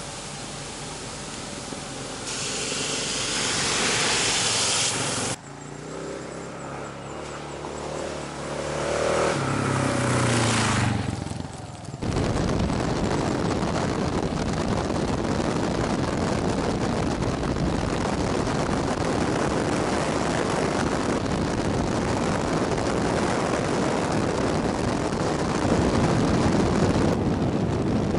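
Kawasaki KLR650 single-cylinder motorcycle engine being ridden. Its pitch rises as it revs up about 8 to 11 seconds in. From about 12 seconds on, a steady rush of wind on the microphone mostly covers the engine as the bike travels along a gravel road. Earlier, a short rushing hiss comes a couple of seconds in.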